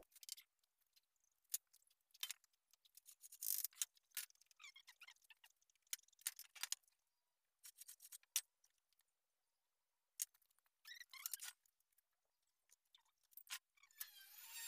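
Faint, scattered clicks, taps and light scrapes of hand tools handled on a wooden door panel: a metal square and straightedge set down and slid, and marking by hand. Near the end a power tool's whine begins to rise.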